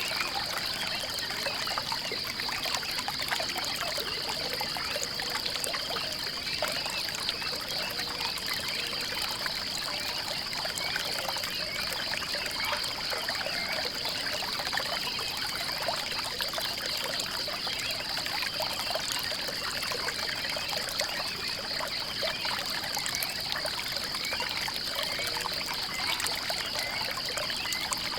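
Water trickling and pouring steadily, like a small stream, with a steady high-pitched, fast-pulsing drone running over it.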